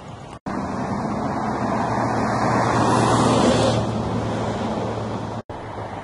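A motor vehicle passing on a nearby road: a steady rush of tyre and engine noise that builds to its loudest about three seconds in, then fades. Two very short silent dropouts break it, one near the start and one near the end.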